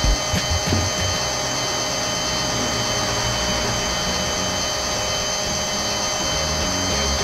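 Small electric winch motor of a Huina remote-control crawler crane whining steadily as it hoists a toy excavator on its cable.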